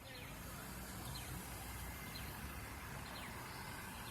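Steady low rumble of idling vehicle engines, with a bird repeating a short falling chirp about once a second.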